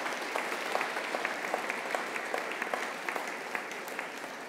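Applause from a large seated audience, a dense steady clapping that eases off a little near the end.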